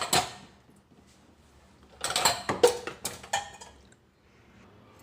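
Kitchen vessels and utensils clattering and clinking as they are put into a dishwasher's racks. There is a sharp knock at the start, then a burst of several clinks and knocks about two seconds in.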